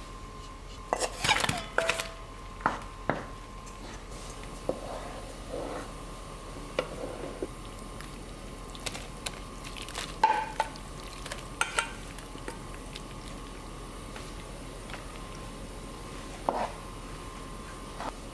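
Wooden spoon stirring thick, bubbling soybean-pulp stew in a pot, with scattered sharp clacks of spoon and bowl against the pot. There is a cluster of knocks as chopped kimchi is tipped in from a bowl about ten seconds in.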